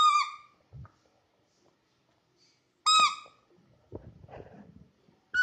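A rubber squeaky ball squeaks twice, about three seconds apart, each a short high steady squeak that dips at the end as a Labrador puppy bites down on it. Faint scuffles come in between.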